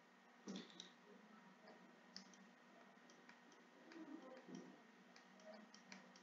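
Faint scattered clicks and ticks of a stylus tapping on a tablet screen during handwriting, with a slightly louder knock about half a second in, over a very quiet background with a faint steady hum.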